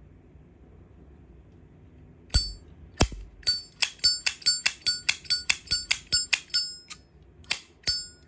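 Zippo lighter's hinged metal lid snapped open and shut over and over: a rapid run of sharp metallic clicks, about four a second, each with a brief high ring. Two heavier clacks start it about two seconds in.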